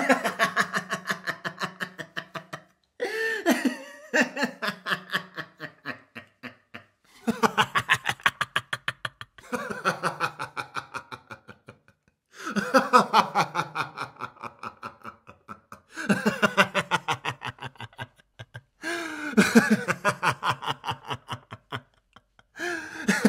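A man laughing in about eight bouts of rapid 'ha-ha-ha' pulses. Each bout falls in pitch and trails off, with short pauses between them.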